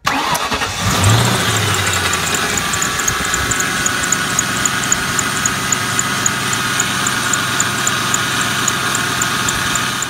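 Ford Mustang engine running, with a bad idler pulley bearing in the accessory belt drive making a steady mechanical whir and a quick, regular high tick about three times a second.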